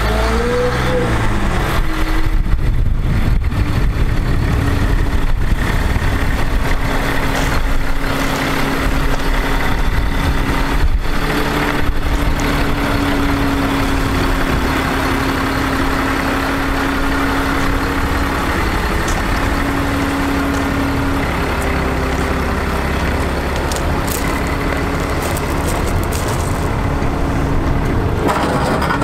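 Bucket truck's engine running at idle with a steady hum. Its pitch rises as the engine speeds up about a second in and again near the end.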